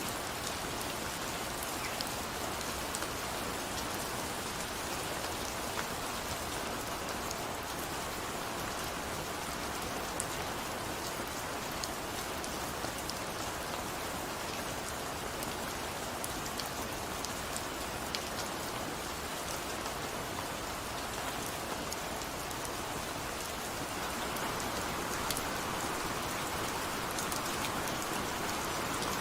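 Steady rain falling, with individual drops tapping sharply here and there. It grows a little louder in the last few seconds.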